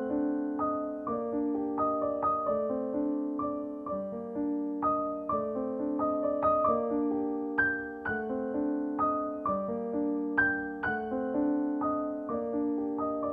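Background piano music: a gentle melody of struck notes over a repeating accompaniment.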